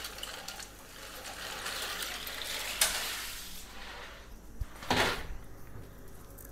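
Dry penne pasta poured into an aluminium pan of water, the pieces splashing and rattling against the pan for about three and a half seconds, with one more short clatter about five seconds in.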